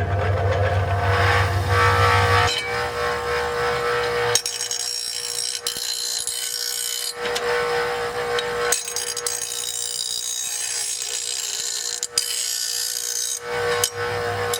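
Electric grinder switched on, its whine rising as it spins up and then holding steady. From about four seconds in, a dull steel lawn mower blade is pressed to the wheel and ground in a run of rasping passes with short breaks, putting a new edge on it.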